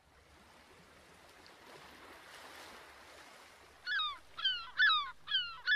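A bird gives five quick, falling cries in a row in the last two seconds, the loudest sound here. Before them there is only a soft wash of noise that swells and fades.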